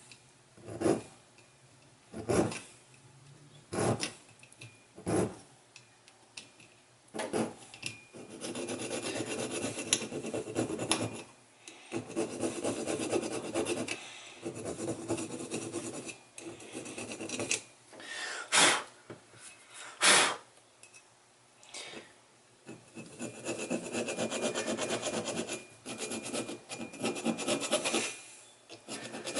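Hand file rasping on an aluminium TBI throttle body casting, taking off leftover casting flash. It starts as single strokes about every second and a half, then goes over to runs of quick back-and-forth filing, with two louder strokes about two-thirds of the way through.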